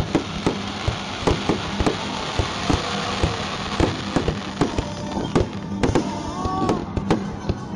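Aerial fireworks going off in rapid, irregular succession: many sharp bangs, several a second, over a steady crackling hiss that swells in the middle.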